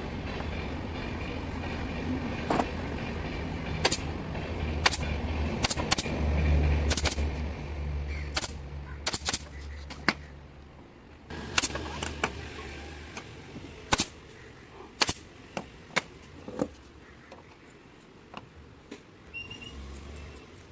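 Pneumatic upholstery staple gun firing sharp single shots at irregular intervals, about one a second, over a steady low hum that fades in the second half.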